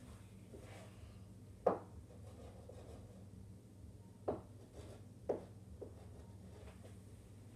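Chalk drawing on a blackboard wall: faint scraping, with three sharp knocks of the chalk against the board, one about two seconds in and two close together past the middle.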